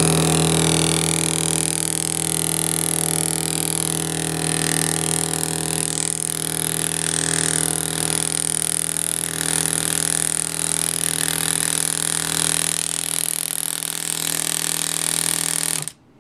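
Home-built air graver running on a test: the modified compressor pulses air through the tubing to the black Delrin handpiece, whose piston hammers steadily, giving a steady pitched hum with a high hiss. It cuts off near the end, and the handpiece is working.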